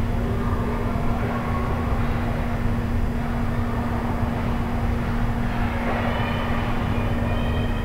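Indoor ice hockey rink ambience during play: a steady low rumble with a constant hum, and a few faint high tones in the last couple of seconds.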